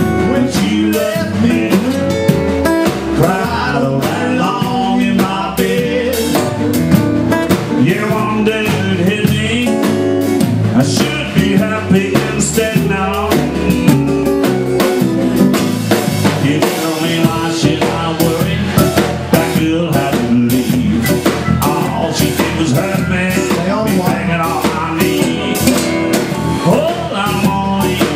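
Live blues band playing a twelve-bar-style blues in E: electric guitar over bass, with a drum kit and djembe keeping a steady beat.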